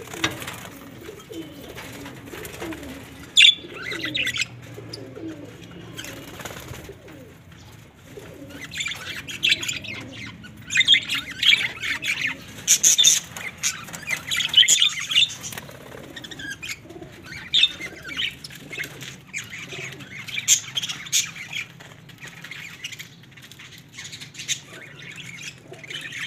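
Budgerigars chattering in their cage, a busy high twitter that comes in bursts and is loudest in the middle. In the first few seconds pigeons coo low underneath.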